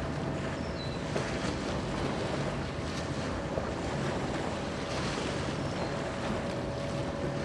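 Steady machinery hum of the steam-turbine Great Lakes bulk freighter Wilfred Sykes passing close by, with a thin steady whine above it, over wind on the microphone and moving water.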